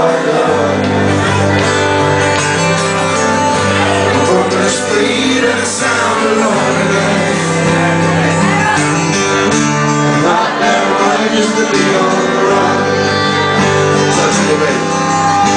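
Live acoustic band music with guitar, with singing in parts.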